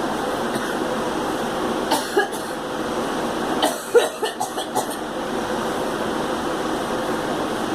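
A girl coughing: two coughs about two seconds in, then a run of five or six quick coughs a little before four seconds in, over a steady background hiss.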